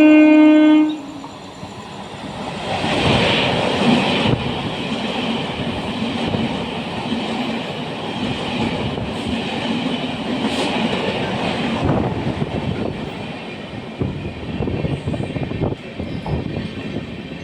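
A loud train horn blast lasting about a second, then the rumble and rail noise of a passing train, with the wheels clattering over rail joints near the end.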